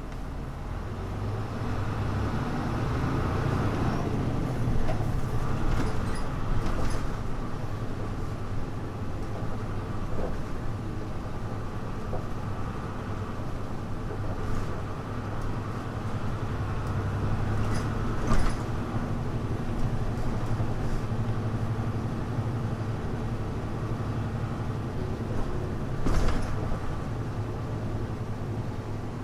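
Hino Blue Ribbon U-HU2MLAA bus heard from on board while driving: a steady, muffled engine drone that swells and eases with the throttle, with a few sharp knocks or rattles from the body, about a quarter, two thirds and nine tenths of the way through.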